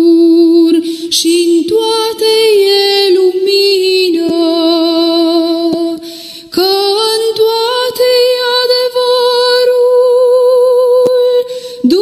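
A woman's voice singing a slow hymn melody with vibrato. She sings a phrase of sustained notes, breaks briefly about halfway through, then glides up into one long held note.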